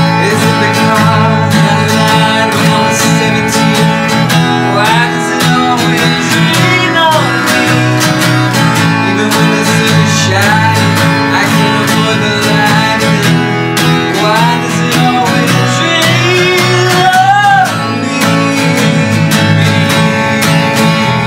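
Strummed acoustic guitar and electric bass guitar playing a song together, with a man singing in phrases over them.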